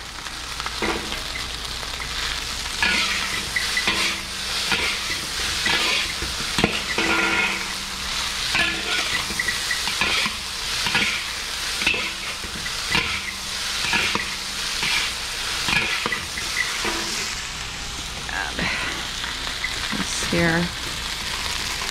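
Fried rice sizzling in a hot wok while two metal wok spatulas toss it and scrape the pan, about one stroke a second.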